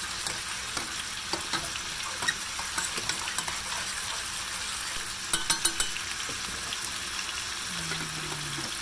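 Chicken pieces sizzling steadily as they brown in hot oil, while a metal spoon stirs rice in a pot of boiling water and clinks against the stainless steel pot, several sharp clinks about five seconds in. Near the end a glass lid is set onto the pot.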